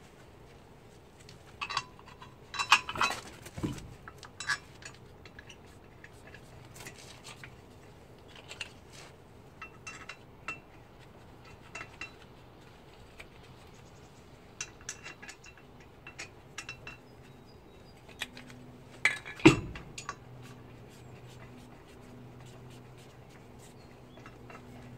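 Scattered metallic clinks and clicks of wheel nuts and tools being handled at a car's steel wheel hub, with louder clattering knocks about three seconds in and again just before twenty seconds.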